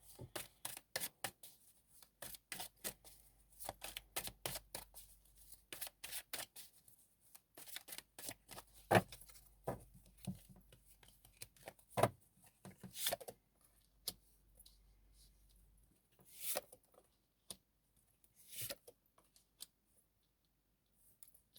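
Tarot cards being shuffled and handled: a quick run of light card flicks and snaps for the first dozen seconds or so, then only a few scattered taps.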